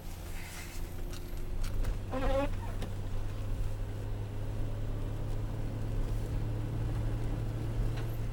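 Vehicle engine and drivetrain humming steadily inside the cabin, the hum growing louder about a second in. A brief wavering squeak about two seconds in.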